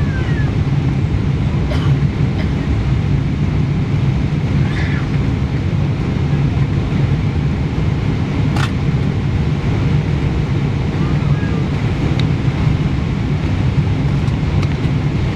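Steady low rumble of an airliner heard from inside the passenger cabin, with a few sharp clicks, the clearest about eight or nine seconds in.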